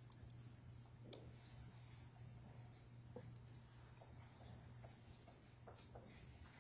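Faint marker squeaking and scratching on a paper flip-chart pad in many short strokes as figures are written, over a steady low hum.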